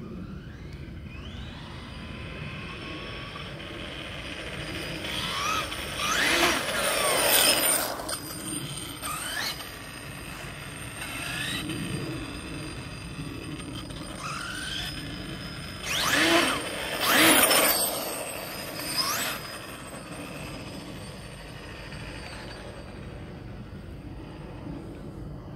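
MCD W5 1/5-scale RC car's TP Power TP5860 brushless motor whining in repeated rising sweeps as it accelerates, with tyre noise on asphalt. It is loudest in two close passes, about six and sixteen seconds in.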